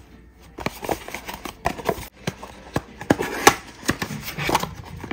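Hands handling and opening a small cardboard gift box: an irregular run of short clicks, taps and rustles of card.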